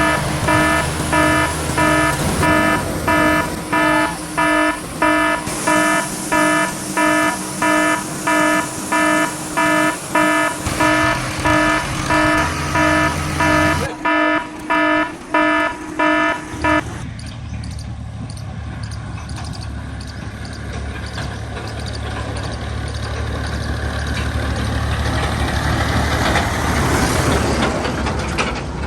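An electronic beeper sounds about twice a second over a running engine, then stops about 17 seconds in. The engine drone carries on alone and grows louder near the end.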